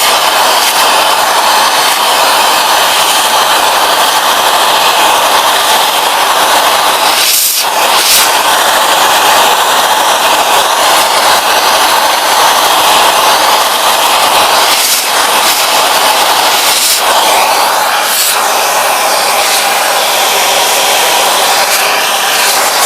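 Vacuum cleaner motor running steadily with a loud rushing of air. The sound shifts briefly a few times, around 7, 15 and 17 seconds in, as the airflow changes.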